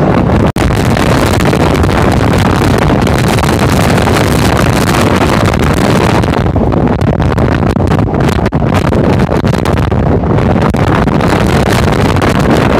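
Electric local train running at speed, a loud steady rush of wheel and motion noise with heavy wind buffeting the microphone. The sound cuts out for a split second just after the start.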